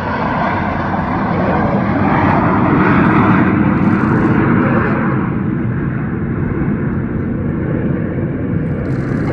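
Snowbirds' Canadair CT-114 Tutor jets flying past, a loud jet rush that swells to its loudest about three seconds in and then fades away.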